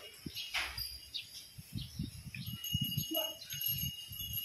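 Scuffs and dull thuds of a young elephant rolling in dry sand and heaving itself up. Steady high ringing tones sound over it.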